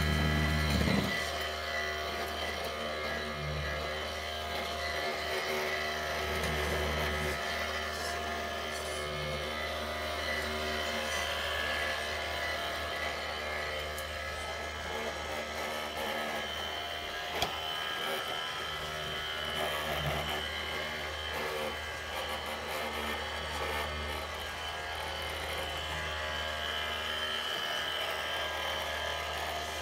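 Small electric motors and gearboxes of RC model trucks and construction machines whirring steadily over a low hum. A louder burst comes right at the start and a single click about 17 seconds in.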